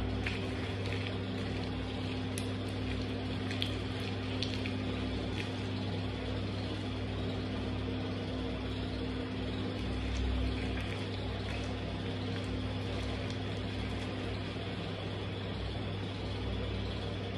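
A steady low hum with a hiss over it. A few faint clicks and squelches fall in the first few seconds, from sneaker soles shifting on crushed orange pulp on a tiled floor.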